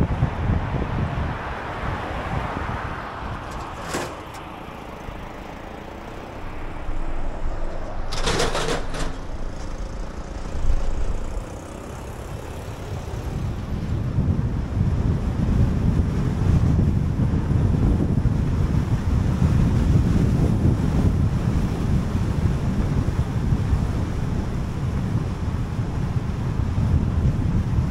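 Road and wind noise of a car driving at expressway speed: a steady low rumble of tyres and wind. There is a short sharp tick about four seconds in and a brief louder rush about eight seconds in, and the rumble grows louder from about fourteen seconds on.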